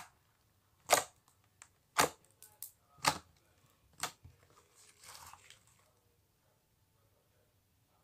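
Marshmallow slime being pressed and squeezed, giving sharp pops about once a second, five in all, then a softer squish.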